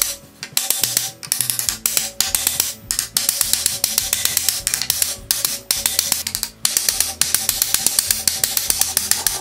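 Background music with a fast percussive beat.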